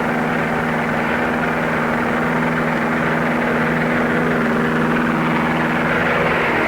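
Propeller aircraft engine droning steadily at one pitch, with heavy hiss from an old film soundtrack.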